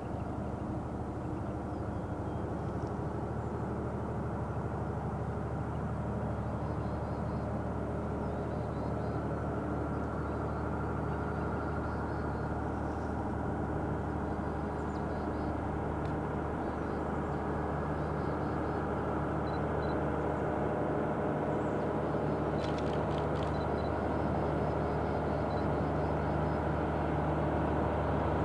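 Diesel train engine running steadily with a low drone of several tones, slowly growing louder as the train approaches.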